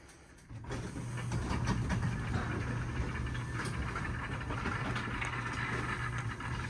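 A motor-driven mechanism starts about half a second in and runs steadily with a low hum and light rattling clicks.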